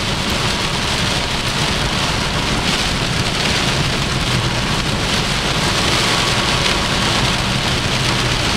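Rain and strong wind beating on a moving car, heard from inside the cabin: a steady rush with a low, even drone of engine and road noise underneath.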